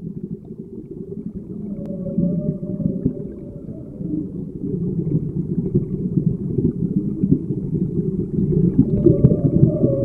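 Low, muffled rumbling that fades in and builds, with a faint steady hum above it.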